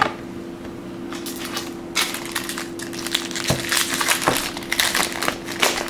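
Foil wrapper of a baseball card pack crinkling and tearing as it is opened by hand: a run of irregular crackles starting about a second in, over a steady low hum.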